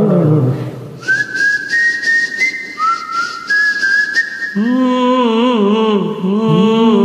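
A whistled phrase of clear stepped notes, then, about four and a half seconds in, a man's voice takes up the tune, singing a long wavering line without words, over a tabla accompaniment.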